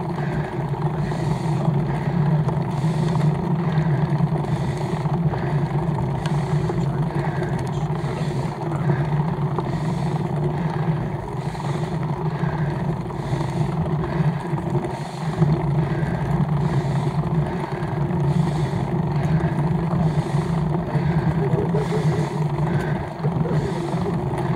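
Steady rumble of a road bike's tyres and drivetrain, with wind, picked up by a camera mounted on the handlebars during a slow climb on wet tarmac, with a faint regular pulse about once a second.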